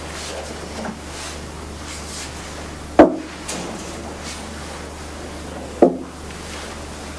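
Two sharp wooden knocks about three seconds apart, the first the louder, with faint shuffling between them over a low steady hum.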